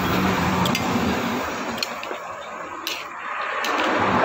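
Pot of pork and cabbage soup at a rolling boil on a gas burner: a steady rushing hiss that swells and eases, with a few light clicks.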